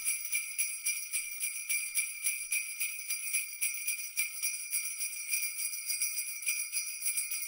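Sleigh bells jingling in a steady shaken rhythm, about four to five shakes a second.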